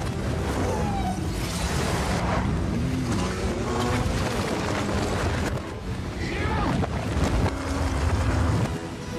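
Action-movie car-chase soundtrack played backwards: a dense mix of vehicle engines and rumbling crash noise, dipping briefly about halfway and swelling louder near the end.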